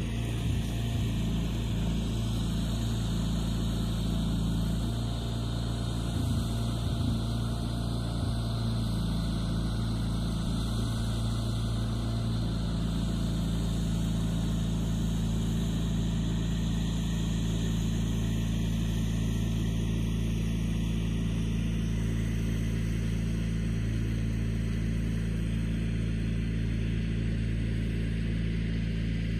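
Steady low hum of a running motor, unchanging in pitch and level.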